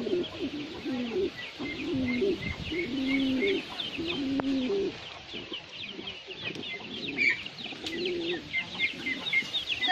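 Domestic pigeons cooing, several low warbling coos following one another with a short lull past the middle, over constant rapid high chirping from other birds.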